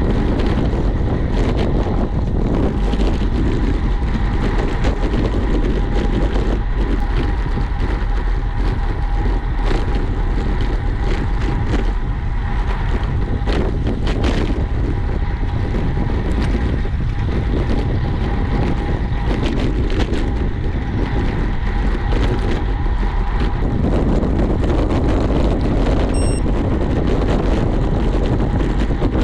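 Wind rushing over the microphone of a camera on a moving road bike, a steady loud rumble, with a faint steady whine from a couple of seconds in until about six seconds before the end.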